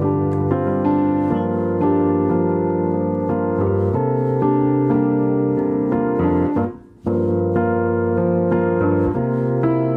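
Piano music playing chords and melody. It drops away briefly about seven seconds in, then picks straight up again.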